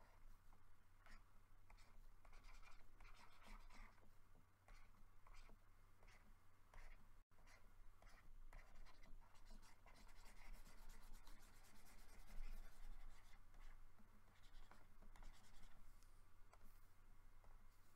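Faint scratching of a stylus drawn across a drawing tablet in many short strokes, over a steady low electrical hum.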